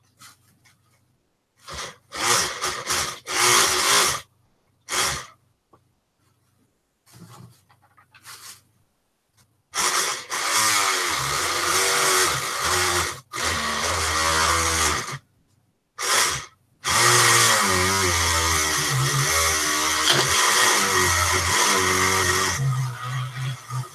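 Handheld Dremel rotary tool sanding a cork float. It runs in a few short bursts, then in two long runs, with its pitch wavering as it bears on the cork, and the sound starts and stops abruptly.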